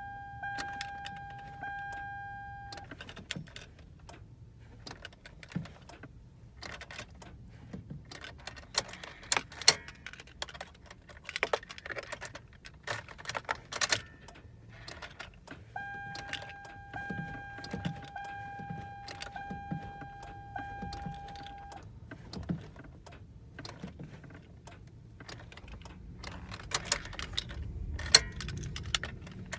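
Keys jangling and clicking in the ignition of a 2005 Toyota Sienna that won't start, with scattered knocks and clicks as the key is worked and the gas pedal pressed. A steady electronic tone sounds twice, briefly at first and then for several seconds midway; the engine never catches.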